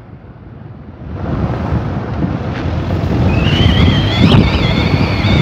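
Wind buffeting the microphone of a phone held out of the window of a moving car: a dense low rush that comes up about a second in. A high, wavering whistling tone joins it over the last two seconds.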